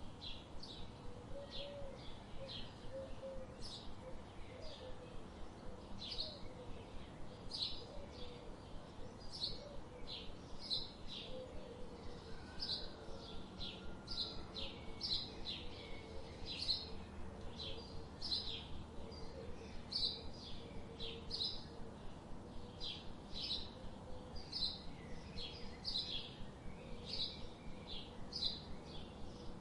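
Songbirds chirping: a steady run of short, high chirps, about two a second, over a light background hiss, with a fainter, lower wavering call in the first half.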